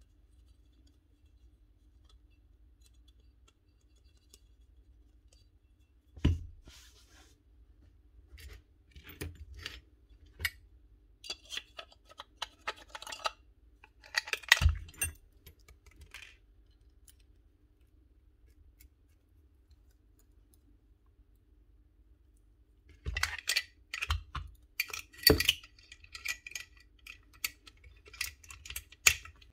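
Small metal and plastic parts of a Paslode gas nailer clicking, clinking and knocking as they are handled and fitted together during reassembly. Scattered light clicks, with louder knocks about six and fifteen seconds in, and a busier run of clinks in the last six seconds.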